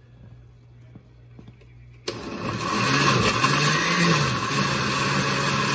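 Countertop blender switched on about two seconds in, its motor running loud as it grinds a jar of soaked ancho chiles, garlic, onion and spices in liquid into an adobo; the motor's pitch dips and rises as the contents churn.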